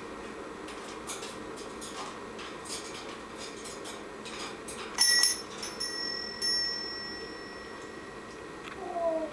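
African grey parrot making mimicked sounds: scattered sharp clicks, then about halfway through a sudden bell-like ring that holds as a steady high tone for about three seconds. Just before the end comes a short falling call, the start of an imitated cat's meow.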